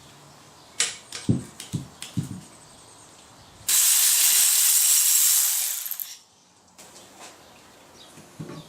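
A few short knocks of tools on metal, then a loud hiss for about two and a half seconds that starts and stops abruptly.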